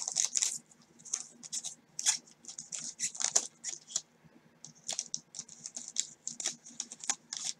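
Wrapper of a 1989 Score football card pack crinkling as it is sliced open with a blade and handled in gloved hands: a rapid, irregular run of short crackles and scratches.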